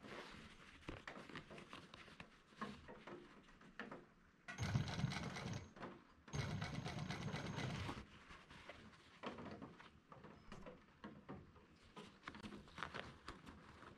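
Industrial sewing machine stitching canvas in two short runs, about a second long four and a half seconds in, then nearly two seconds from about six seconds in. Between and around the runs come faint rustling and clicks as the canvas and zipper are shifted under the foot.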